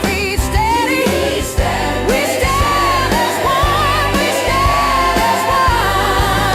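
Slow blues-rock band music: drums and bass keep a steady groove under a wavering lead melody with heavy vibrato.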